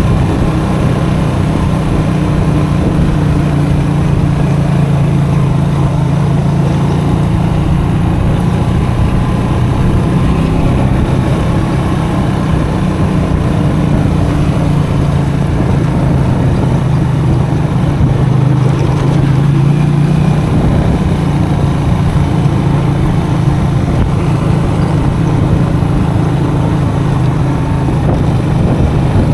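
Custom motorcycle's engine running steadily while ridden off-road, its pitch rising and falling a little.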